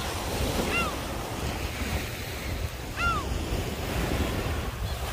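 Small waves breaking and washing up onto a pebbly sand beach, with wind rumbling on the microphone. A short rising-and-falling call sounds twice.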